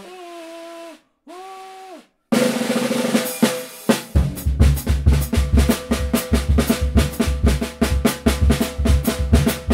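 A held musical note sounds for about two seconds, breaking off briefly once. A little after two seconds in, an acoustic drum kit comes in with snare strokes, and from about four seconds in it plays a fast, dense pattern of snare and bass drum strokes.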